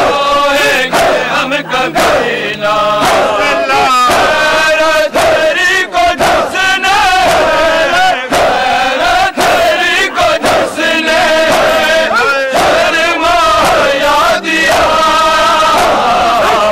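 Crowd of men chanting and shouting together, loud and continuous, the voices rising and falling in pitch with only brief pauses.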